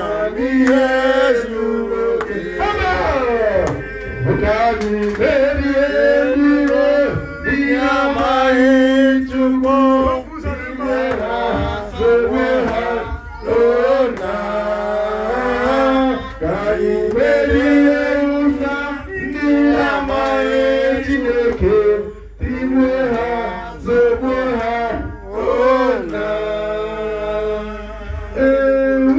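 A man singing and chanting into a handheld microphone, his voice amplified through the hall's speakers, in long phrases with only short breaks.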